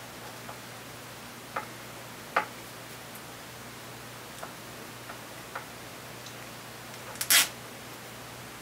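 Sparse small clicks and ticks of hands handling and twisting the stripped wires of a power supply harness, with a louder brief rustle about seven seconds in, over a steady hiss and low hum.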